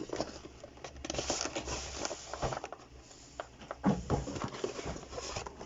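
Handling noise from a cardboard keyboard box being unpacked by hand: rustling and scraping of cardboard with small clicks and taps, and one louder knock about four seconds in.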